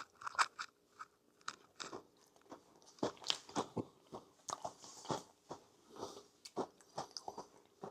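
Close-miked eating of a no-bake Biscoff cheesecake: a string of irregular crunchy bites and chewing clicks.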